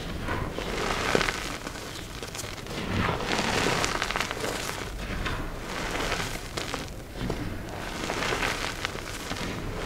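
Dyed, reformed gym chalk being crushed and crumbled: gritty, crunchy crackling mixed with soft, dusty powder sounds, swelling and easing in irregular waves.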